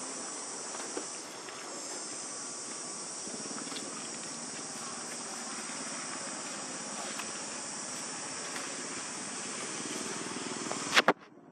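Steady high-pitched insect chorus with a few faint ticks; about 11 seconds in a sharp knock, after which the chorus drops away.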